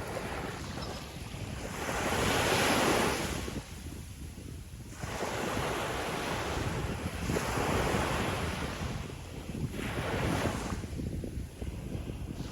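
Sea waves breaking on a beach, the rush of surf swelling and falling back three or four times, with wind buffeting the microphone as a steady low rumble.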